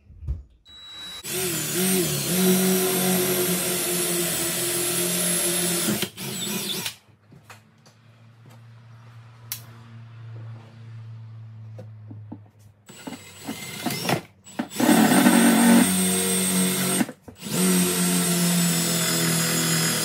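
Cordless drill with a long drill bit boring through a wall to the outside, running in a steady whine. It makes one long run of about five seconds near the start, a quieter stretch in the middle, and then two more runs near the end.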